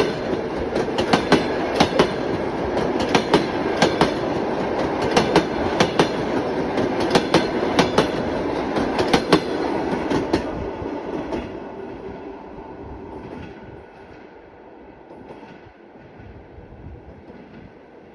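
Passenger train carriages passing on the rails, wheels clicking over rail joints in repeated quick groups over a steady rumble. About ten seconds in the clicking stops and the rumble fades away as the train moves off.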